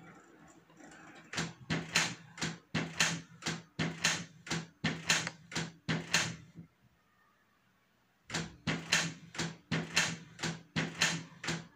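Canon PIXMA MG2540S inkjet printer's mechanism clacking rhythmically, about two to three knocks a second, as it runs its automatic print-head cleaning cycle. The knocking stops for about a second and a half midway, then resumes.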